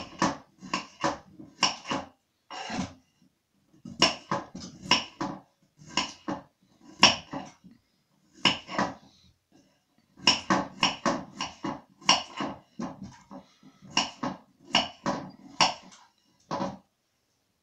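Kitchen knife cutting peeled potatoes into chunks on a wooden cutting board: sharp knocks of the blade striking the wood, in quick groups of several strokes with short pauses between.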